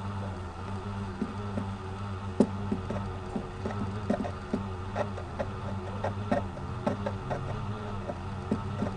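Irregular sharp clicks and taps of computer keyboard and mouse use, starting about two seconds in, over a steady low electrical hum.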